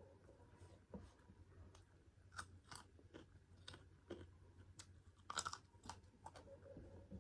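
Close-miked chewing of pork curry and rice: a run of soft crunches and mouth clicks, the loudest cluster about five seconds in.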